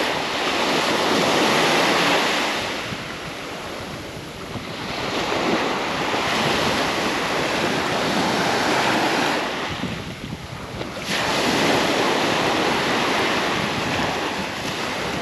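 Small waves breaking and washing up a sandy beach, the surf swelling and fading in surges every few seconds, with wind rumbling on the microphone.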